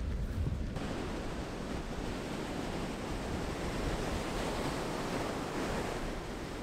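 Wind rumbling on the microphone, then, just under a second in, the steady rush of rough surf breaking on a sandy beach.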